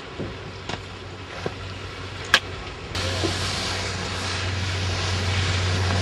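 Steady outdoor rumble and hiss on the microphone, with a few short clicks in the first half, then suddenly louder and hissier about halfway through.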